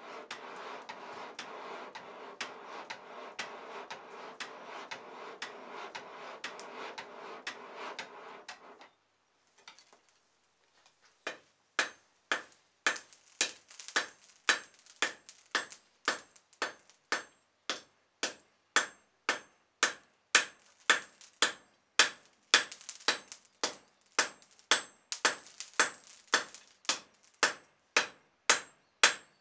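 Charcoal forge fire rushing under the air blast of a box bellows, stopping after about nine seconds. From about eleven seconds, a hand hammer strikes white-hot steel on a block anvil about twice a second, each blow ringing: the blows setting a forge weld of high-carbon steel onto mild steel.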